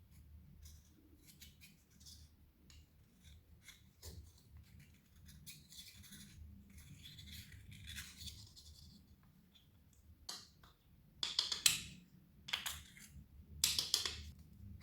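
Clear slime being worked by hand while makeup is mixed in, with small sticky clicks and crackles throughout. Three louder crackling bursts come near the end.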